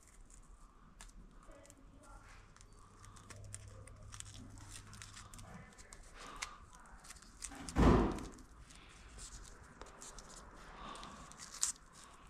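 Hands at work on an engine wiring harness: scattered small clicks and rustles of wire and loom being handled, with one loud thump about eight seconds in.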